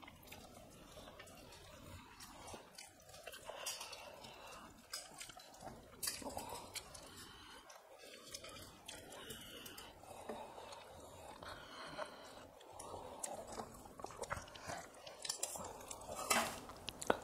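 Chewing and mouth sounds of people eating rice and chicken curry by hand, with scattered short clicks from fingers and a spoon against steel plates and a steel bowl; the loudest clicks come near the end.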